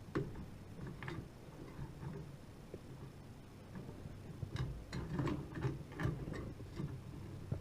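Light clicks and taps of a CPU cooler's plastic push pins being worked into the motherboard mounting holes, with a busier run of clicks a little past halfway.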